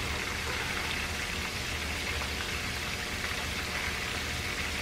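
Flour-coated shrimp deep-frying in hot oil: a steady sizzle.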